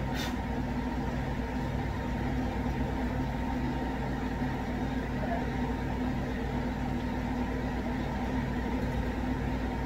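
Steady drone of a shop fan and a running laundry machine, with a low hum that pulses in a regular rhythm.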